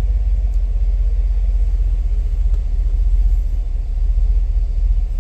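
2017 Cadillac Escalade's 6.2-litre V8 idling with a steady, pulsing low rumble, while cylinder 1 keeps misfiring; the mechanic puts the misfire down to a faulty spark plug.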